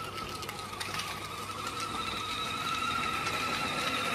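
Electric motor and gearbox of a kids' battery-operated 12-volt ride-on motorbike whining as it is ridden: one steady high tone that wavers slightly and climbs a little, picking up a higher overtone about halfway through and growing slowly louder.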